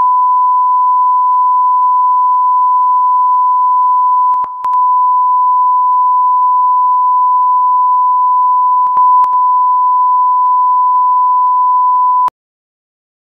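Steady 1 kHz test-card tone under colour bars, one unbroken beep held for about twelve seconds, with brief clicks twice along the way; it cuts off suddenly about a second before the end.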